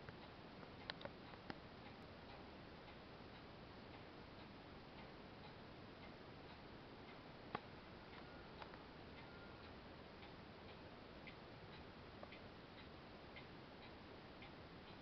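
Near silence: a low hiss with faint, even ticking about twice a second and a single sharper click about seven and a half seconds in.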